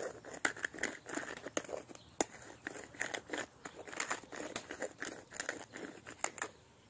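Hand-twisted pepper mill grinding black peppercorns: a fast, irregular run of crunching clicks that stops near the end.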